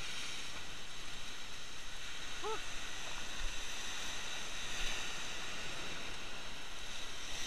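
Rough sea surf breaking and churning against a rocky shore, a steady rushing wash.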